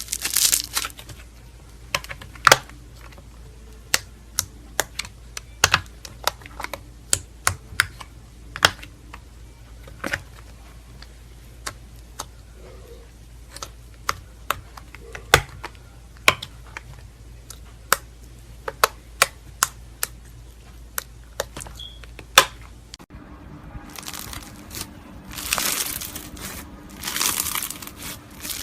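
Slime being played with by hand: a run of sharp, irregular clicks and pops over a low steady hum. Then, after a cut about 23 seconds in, longer crackling squishes as slime is squeezed and kneaded.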